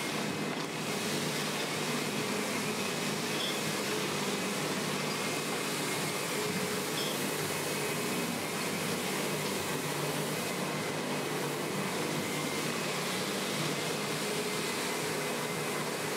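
Upright vacuum cleaner running, a steady, even motor noise with no breaks.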